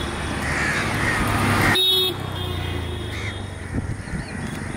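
Traffic rumble with a short vehicle horn honk about two seconds in and crows cawing now and then.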